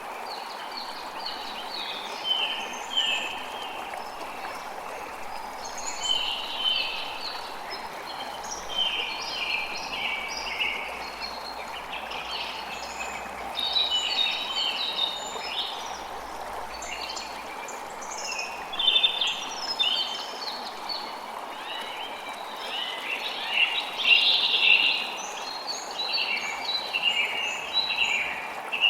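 Forest ambience: several songbirds singing in overlapping short chirps and quick trills, over a steady, even rushing hiss.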